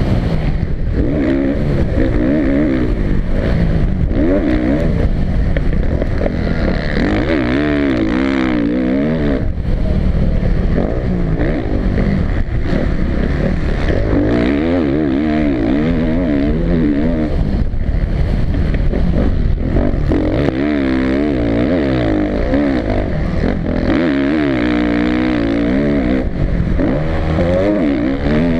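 Suzuki motocross bike's single-cylinder four-stroke engine racing hard, heard from a camera mounted on the bike. Its pitch climbs and drops over and over as the throttle is opened, shut and the gears change.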